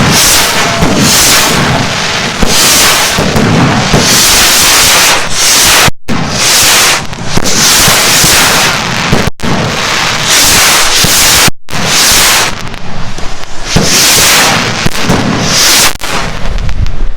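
A dense, loud barrage of firework rockets launching and bursting, a continuous mix of hissing launches and sharp cracking reports, broken by a few sudden brief cutouts.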